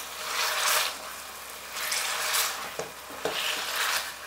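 Metal potato masher pressing down into soft, cooked-through pumpkin pieces in a pan: three noisy mashing strokes about a second and a half apart, with a couple of light knocks of the masher against the pan about three seconds in.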